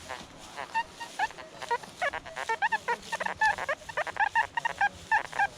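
A flock of geese honking, many short calls overlapping in quick succession.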